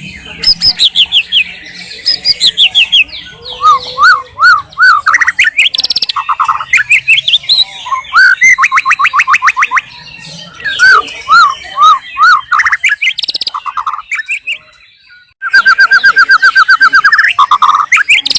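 White-rumped shama singing a long, varied song of loud whistled phrases: runs of quickly repeated notes and rapid trills that change from phrase to phrase, with a brief pause near the end.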